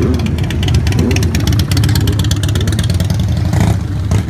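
Motorcycle engine running with a steady low rumble as a bike rides slowly past.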